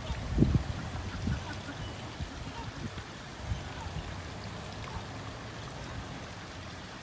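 Steady sound of running or splashing water, with a few low thumps in the first second and a half, the loudest about half a second in.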